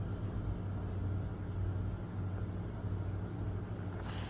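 Steady low hum with a faint even hiss: room tone, with a brief faint rustle near the end.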